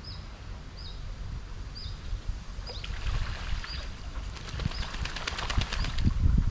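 A waterbird's wings flapping in a rapid run that starts about three seconds in and grows louder. Over it, a small bird repeats a short, falling chirp about once a second, with a low rumble of wind on the microphone that rises near the end.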